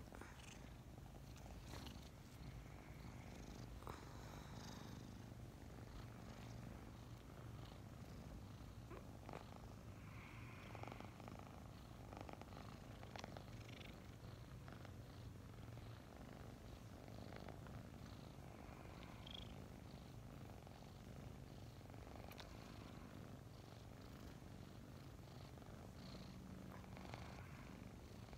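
Two five-month-old kittens purring steadily right at the microphone, a faint low continuous rumble, with occasional small rustles and clicks of movement.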